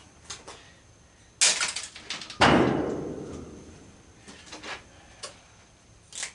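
A quick clatter of knocks, then one loud bang that rings and dies away over about a second and a half, followed by a few lighter knocks: tools and parts being handled against the workbench and the toy horse during teardown.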